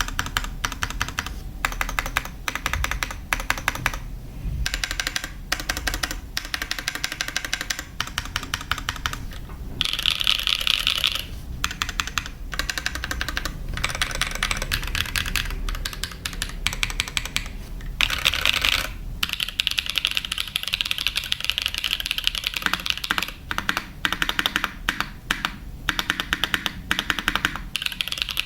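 Typing on a TGR 910 clone mechanical keyboard with Creamsoda switches: a steady stream of clacky keystrokes, with brief fast, dense runs twice.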